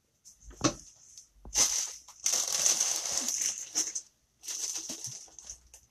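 Hands rummaging for a ball of yarn: a sharp knock a little over half a second in, then irregular bursts of rustling and handling noise.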